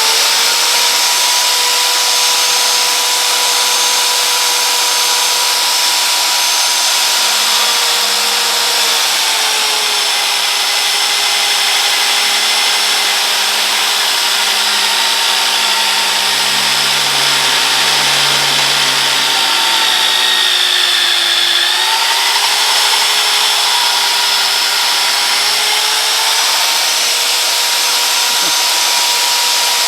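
Vevor magnetic drill press motor running as its annular cutter bores through steel: a steady high whine whose pitch sags under the cutting load from about a quarter of the way in. The pitch is lowest about two-thirds through, then climbs back as the cutter breaks through and spins freely.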